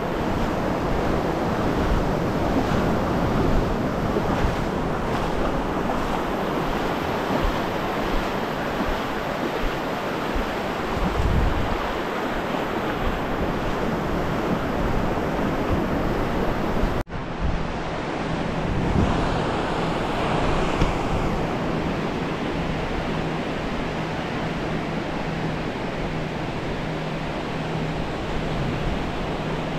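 Ocean surf breaking and washing up the beach, a steady rushing hiss, with wind buffeting the microphone. The sound drops out abruptly for an instant a little past halfway, then carries on.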